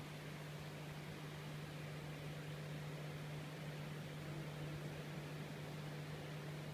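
Hang-on-back aquarium filter running: a steady low hum with an even hiss over it.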